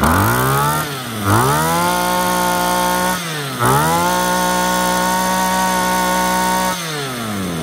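Small 22 cc two-stroke engine of a used Japanese brush cutter being throttled: it drops back, revs up to a high steady whine, dips briefly about three seconds in, revs up and holds again, and falls back to idle near the end. The seller calls its running very quiet.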